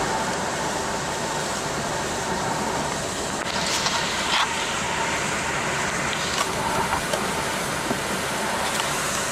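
Steady road noise inside a car driving fast through heavy rain: tyres hissing on the waterlogged road and rain on the windshield. A few brief, sharper swishes come from about three and a half seconds in, likely the wipers or bursts of spray.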